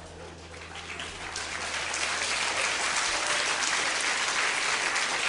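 Theatre audience applauding. The clapping swells about a second in and then holds steady.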